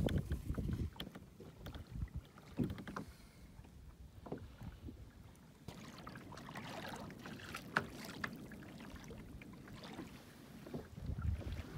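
Sea water lapping and splashing against a kayak hull, with irregular knocks and small splashes and a low rumble of wind on the microphone.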